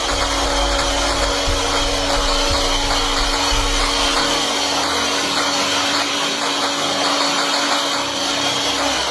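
Electric hand mixer running steadily at speed, its beaters whisking eggs in an aluminium pot until they turn frothy. A low rumble under the whirr fades out about halfway through.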